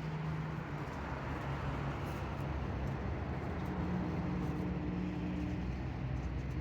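An engine running steadily, with a low hum that shifts a little in pitch.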